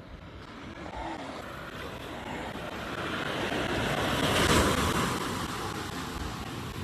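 A sea wave breaking and washing up the sand: a rushing hiss that swells to its loudest about four and a half seconds in, then fades away.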